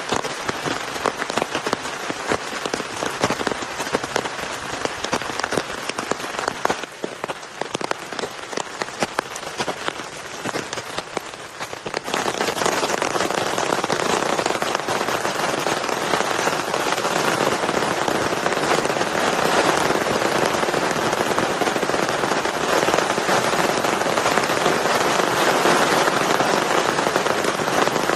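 Heavy rain, with many separate drops pattering sharply on a surface. About twelve seconds in it changes abruptly to a louder, denser, steady downpour.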